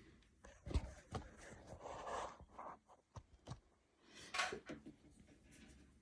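Faint handling sounds of backing paper being peeled off two-sided mounting tape: a few light taps and a brief rustle about two seconds in.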